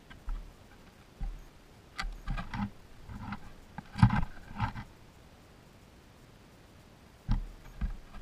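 Baby skunks bumping and scrabbling against the camera, heard as a series of close knocks and scrapes on the camera body in short clusters with quiet gaps between them; the loudest knock comes about four seconds in, as the picture shakes.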